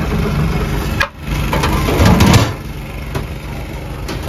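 Steel serving scoop scraping and knocking against steel biryani pots and trays, with a loud burst of scraping about two seconds in and a few sharp clicks, over a steady engine hum.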